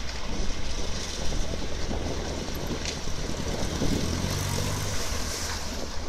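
WW2 jeep's four-cylinder engine running as it fords a shallow river, louder as it passes close about four seconds in. Water splashes around the wheels over the steady rush of the river.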